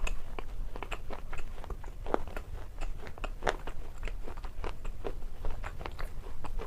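Close-up eating of watermelon: bites crunching into the crisp flesh and chewing, in quick irregular crunches several times a second over a low steady hum.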